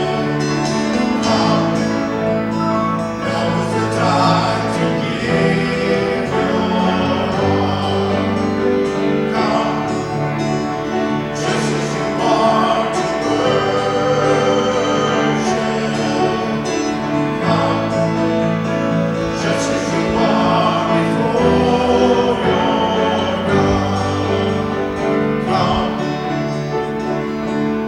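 Live worship song: voices singing over instrumental accompaniment, with steady held bass notes underneath.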